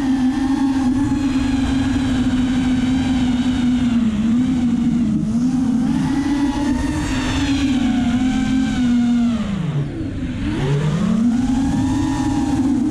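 A 5-inch race quadcopter's four Racerstar BR2205 2300kv brushless motors and propellers whining in flight, the pitch rising and falling constantly with throttle. About ten seconds in the pitch drops steeply as the throttle is chopped, then climbs back as power comes on again.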